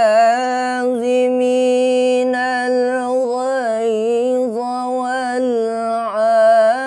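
A man reciting the Quran in melodic tilawah style, drawing out one long unbroken phrase with held, wavering ornamented notes that swell a little louder near the end.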